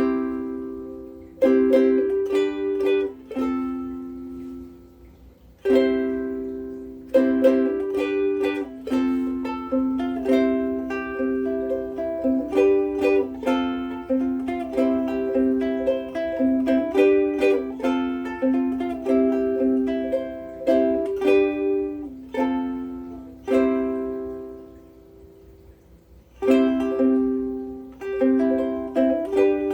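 Martin S1K koa soprano ukulele with Martin M600 strings, strummed in chords. There is a brief pause about four seconds in, and a chord rings out near the end before the strumming starts again.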